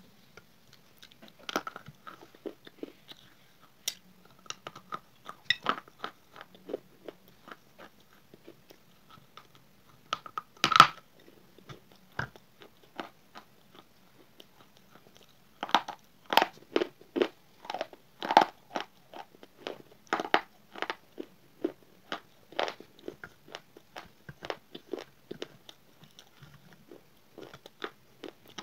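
A person biting and chewing a water-dipped slate bar: a long, irregular run of sharp crunches and crumbly chews. The loudest crunch comes about eleven seconds in, and the crunching is densest a little past the middle.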